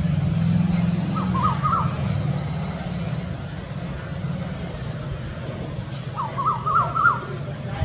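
A cuckoo calling in short, quickly rising notes: a run of three about a second in, then a faster run of about five near the end. A steady low rumble, like a vehicle or engine, runs underneath.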